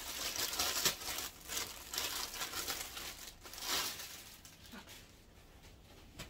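A clear plastic poly bag crinkling and rustling as a garment is pulled out of it. The crinkling is busy over the first four seconds and dies away after that.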